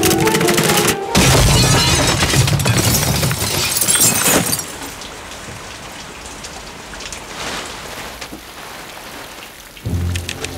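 Rain with thunder: music breaks off about a second in, a loud rumble with heavy rain follows, and after about four and a half seconds it settles to steadier, quieter rain. Music comes back near the end.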